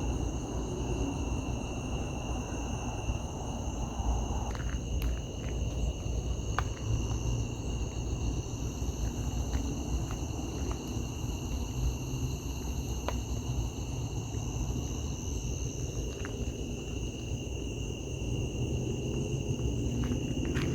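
Outdoor ambience: a steady high-pitched insect chorus over a continuous low rumble, with a few faint clicks.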